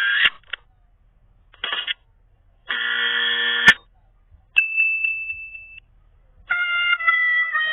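A string of short, separate sound effects with silent gaps between them: two brief bursts, a one-second sound with many pitches that ends in a sharp click, a steady high beep of about a second, then, near the end, a held sound with several pitches.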